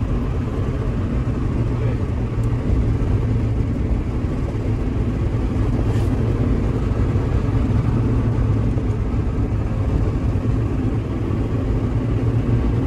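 Mazda MX-5 NB's four-cylinder engine running steadily under way, with tyre and road noise, heard from inside the small cabin. The low rumble holds level throughout, with no clear revving up or down.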